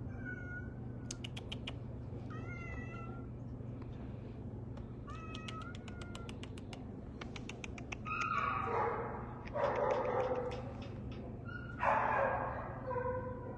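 Domestic cat giving short, high, chirp-like meows that sound like a bleep rather than a real meow, three times in the first half. From about eight seconds in come three louder, longer cat cries.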